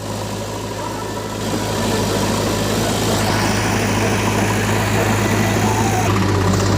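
Tractor's diesel engine running steadily with a deep hum, a little louder from about a second and a half in.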